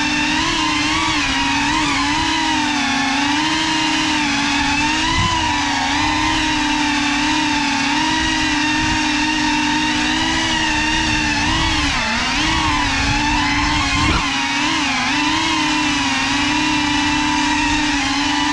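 Small FPV drone's electric motors and propellers whining steadily, the pitch wavering up and down with the throttle. One brief knock about three quarters of the way through.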